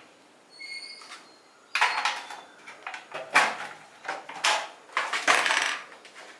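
Plastic pencil box and stationery being handled: a brief faint squeak, then a string of clicks, clatters and rustles as the pieces are moved and set down, the sharpest knock a little past the middle.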